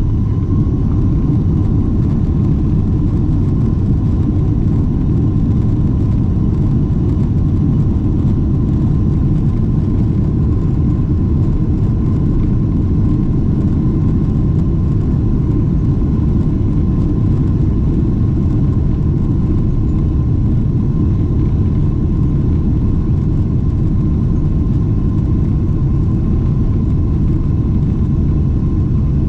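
Steady low rumble of engine and airflow noise inside the cabin of a Boeing 777-300 airliner, with a faint steady whine above it.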